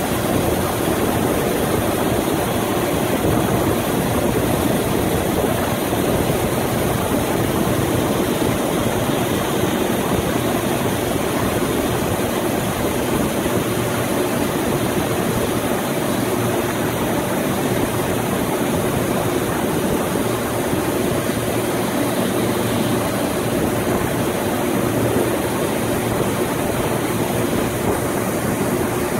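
Heavy engine running steadily while the tender's crane lifts a concrete block on heavy chain.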